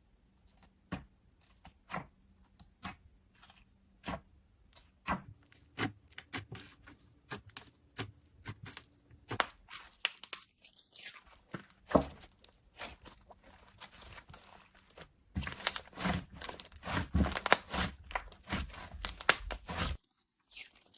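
Slime with clay mixed in being kneaded and squeezed by hand, giving sharp crackling pops and clicks. They come about once a second at first, grow busier, and turn to a dense run of crackles about three-quarters of the way through before stopping just before the end.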